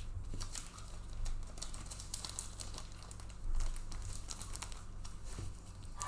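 Crinkly plastic packaging of trading cards being handled and pulled open, in short irregular crackles with a louder rustle about three and a half seconds in.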